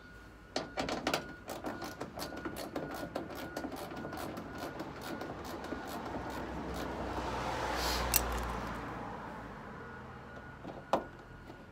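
A quick run of clicks and pops for the first few seconds as screws are started into a plastic fender flare: the flare rides up on the not-yet-tightened screws and bounces back off the threads. Then a passing vehicle swells and fades, loudest about eight seconds in, with a single sharp knock near the end.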